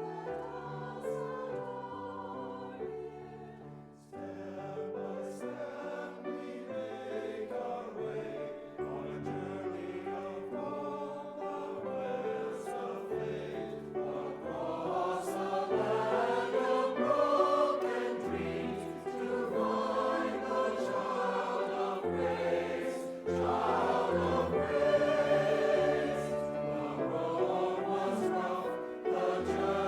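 Choir singing a Christmas anthem in parts, growing louder over the passage.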